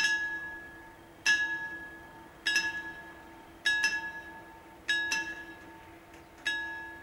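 Railway level crossing warning bell striking repeatedly, about once every 1.2 seconds, each ringing stroke fading before the next: the signal that the barriers are closing for an approaching train. A faint steady hum lies underneath.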